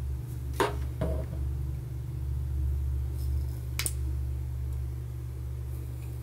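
A few light clicks of plastic Mega Bloks toy pieces as the shark's fishing line is reeled and the minion figure raised and lowered, over a steady low hum.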